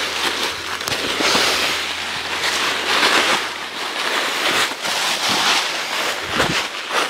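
Footsteps crunching and crackling through dry leaf litter, roughly one step a second, as someone walks down a wooded slope.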